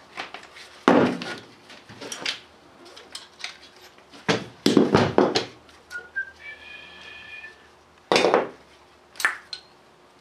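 Metal clanks and clinks of a valve spring compressor and loose valve parts on a Cummins diesel cylinder head as the valve springs and keepers are removed. Several sharp ringing knocks, with a brief high steady tone a little past the middle.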